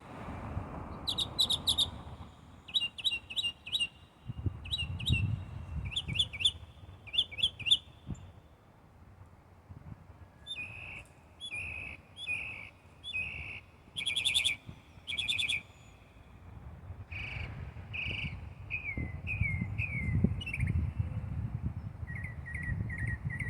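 A bird chirping in quick runs of three to five short, sharp notes, repeated every second or so; some later notes slur downward. A low rumble runs underneath.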